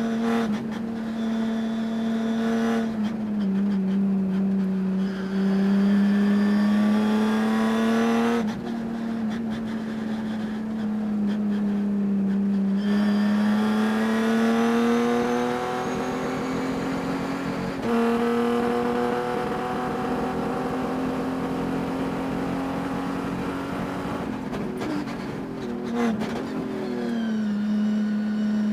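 Race car engine running hard during a race, its pitch climbing and falling over several seconds at a time, with a few sudden drops and jumps in pitch. The owner says the engine had a miss at high RPM all race.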